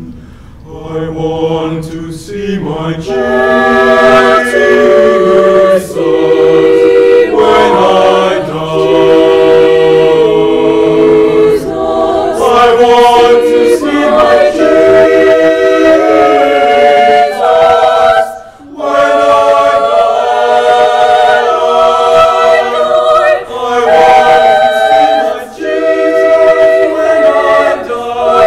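Mixed-voice high school choir singing a cappella in several parts, with a short break for breath about two-thirds of the way through.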